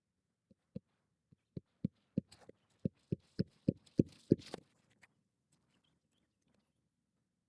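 Hammer striking a roofing nail being driven through an asphalt shingle: about a dozen sharp knocks over four seconds, coming faster and harder toward the end.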